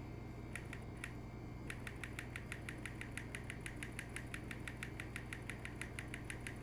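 Manual typewriter typing: a few separate key strikes, then a quick even run of strikes at about six a second, over a steady low hum.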